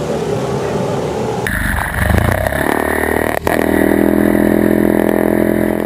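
A bumper boat's small motor heard from on board: it picks up about two seconds in and then runs steadily at speed, with a brief sharp knock at about three and a half seconds. Before that there is only hazy outdoor background noise.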